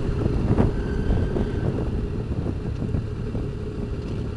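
Motorcycle riding with wind rushing over the microphone; the engine's steady note gives way to a rougher, quieter rumble and the overall level eases down as the bike slows.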